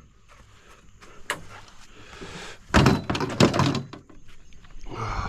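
A few knocks and thuds, with a short scraping rustle about two seconds in and a loud cluster of knocks and rattles about three seconds in.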